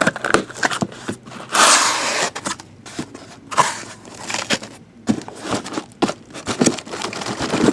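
Packing tape torn off a cardboard case as its flaps are pulled open, a loud rip lasting under a second. Then cardboard scraping and knocking as the case is handled and turned over.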